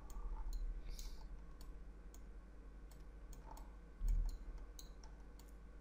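Computer mouse clicking at an irregular pace, a dozen or so light clicks, with a soft low thump about four seconds in.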